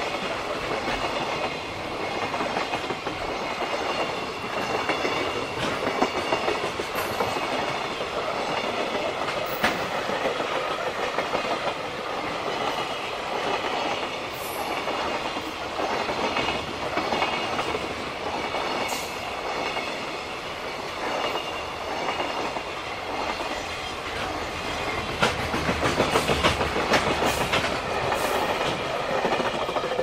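Freight train of Koki 106 container flatcars rolling past, wheels clattering in a steady clickety-clack over the rail joints amid continuous wheel-on-rail rumble, with a few sharp clicks.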